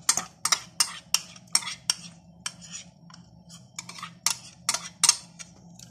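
Slotted metal spatula stirring milk in a stainless steel saucepan, clicking and scraping against the pot about two to three times a second, as the yogurt starter is mixed in.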